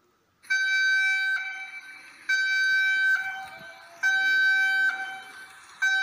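Emergency alert alarm tone: a harsh, horn-like buzzing tone that starts about half a second in and repeats in blasts about every second and three-quarters, each blast dropping to a quieter tail before the next.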